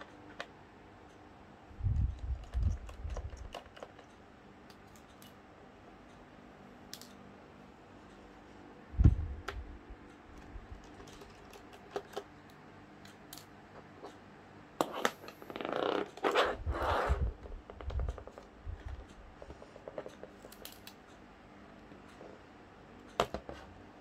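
Small clicks, taps and dull knocks of hands and small tools working inside an opened laptop during a fan replacement. There is a run of low bumps early on, one sharp knock about nine seconds in, and a busier stretch of rustling and knocking about two-thirds of the way through.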